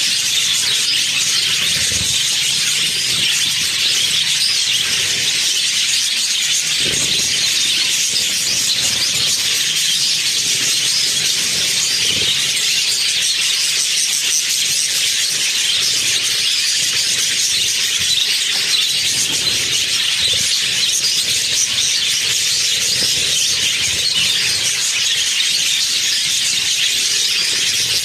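A flock of budgerigars chattering and chirping continuously, a dense, unbroken mass of high-pitched calls.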